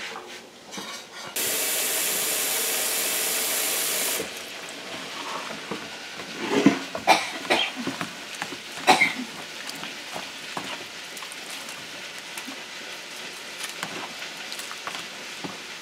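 Water running into a bowl of freshly grated coconut for about three seconds, starting and stopping abruptly. Then wet squelching and rustling as a hand mixes and squeezes the soaked coconut to draw out the milk.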